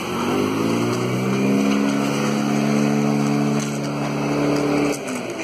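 An engine rising in pitch as it speeds up, then running steadily at a constant pitch and stopping abruptly about five seconds in.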